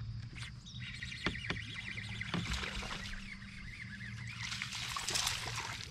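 A hooked largemouth bass splashing and thrashing at the water's surface as it is reeled in to the boat, heaviest about five seconds in.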